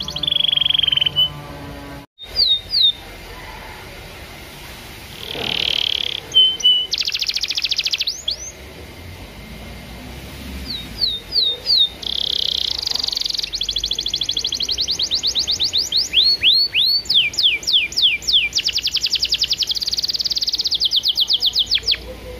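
Canary singing: held whistles, quick falling sweeps and long rapid trills of repeated notes, in phrases with short pauses between.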